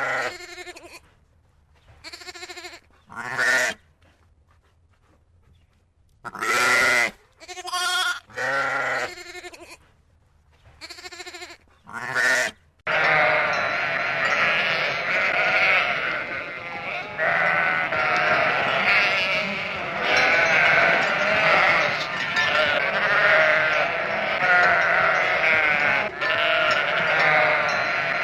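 Goats bleating: about eight separate bleats with pauses between them, then, about halfway through, a dense chorus of many goats bleating over one another without a break.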